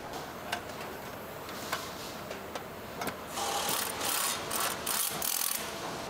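Amplifier assembly work: a few sharp clicks of parts being handled, then a run of five or six short hissing bursts in the second half.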